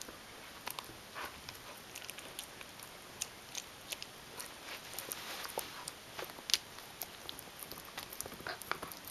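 Shetland sheepdog gnawing a Busy Bone chew: irregular sharp clicks and crunches of teeth on the chew, several a second, the loudest about six and a half seconds in.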